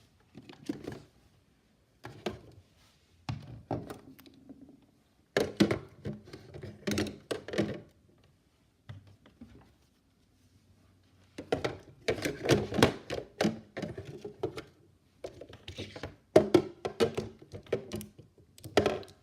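Plastic toy microwave and toy pieces being handled: irregular clusters of knocks, clicks and clatter with short quiet gaps between them.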